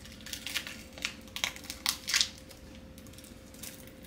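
Thin plastic wrapping crinkling and tearing as a small wrapped item is pulled open with the teeth and fingers: a run of sharp crackles, loudest about two seconds in, and a brief rustle near the end.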